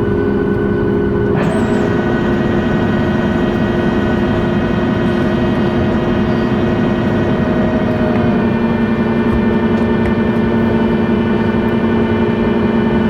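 Jet engines of a Boeing 737 MAX 8 airliner, CFM LEAP-1B turbofans, running and heard from inside the cabin: a steady rumble with several whining tones that shift in pitch about a second in and again about eight seconds in.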